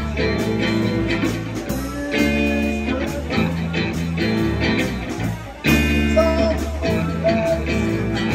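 Live blues band playing: electric guitar and electric bass over drums, with a harmonica, in repeating chord phrases.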